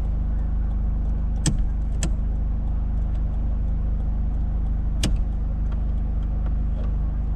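A 1986 Camaro IROC-Z's V8 engine idling steadily, with a few faint clicks over it.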